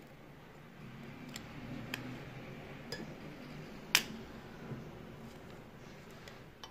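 Handling of a watch bracelet link-removal tool as its screw handle is turned to press a pin out of a stainless steel bracelet link: a few light clicks, then one sharp click about four seconds in.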